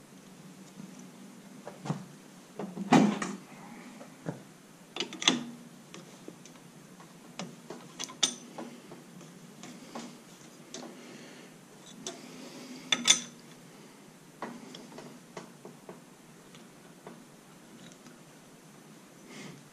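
Irregular metal clicks and clinks of hand work on a small outboard motor's flywheel hub: the lock washer and lock nut being fitted and a ratchet wrench set on the nut. The loudest clicks come about 3 and 13 seconds in.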